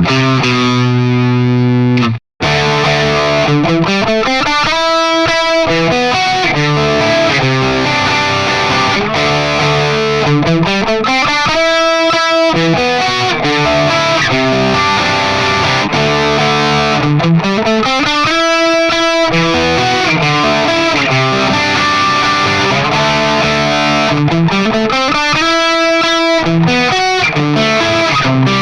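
Squier Affinity electric guitar played through distortion and effects, repeating a phrase that climbs in pitch about every seven seconds. The sound cuts out briefly about two seconds in.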